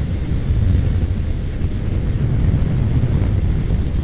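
Steady low rumble of wind rush and engine while riding a motorcycle at freeway speed.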